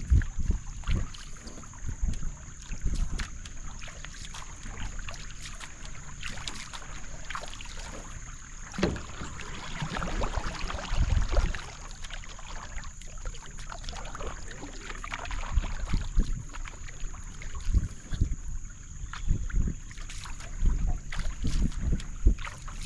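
Paddle strokes and water swishing along the hull of a Wenonah J-210 marathon racing canoe, with irregular low buffeting on the microphone and a steady high-pitched drone.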